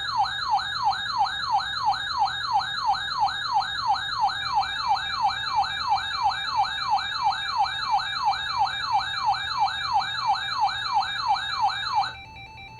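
Electronic warning tone played over the broadcast: a rapid siren-like yelp, each sweep falling in pitch, about three a second. About 12 seconds in it cuts off and a quieter steady two-tone alert signal takes over, like the Emergency Alert System attention tone.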